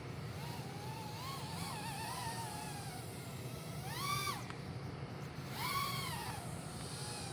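3-inch micro racing quadcopter's motors whining in flight, the pitch wavering at first and then rising and falling in two arcs, about four and six seconds in, as the throttle is punched and let off, over a steady low rumble.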